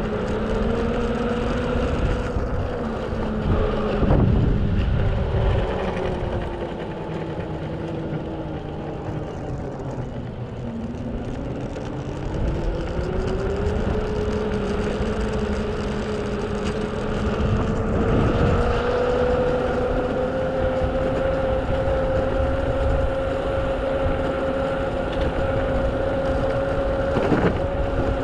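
Mototec 600 W electric skateboard's motor whining as it rides. The pitch falls as the board slows about ten seconds in, then rises again as it speeds back up. Under the whine is the rumble of its airless rubber tyres on rough asphalt, with a few thumps.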